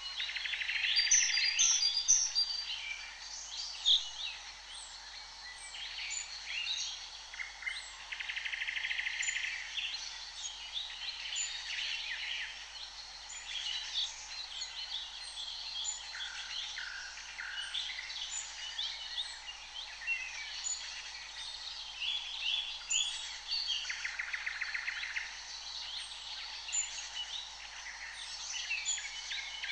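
A chorus of songbirds singing and calling over one another, with a steady stream of short chirps, high thin notes and a couple of buzzy trills.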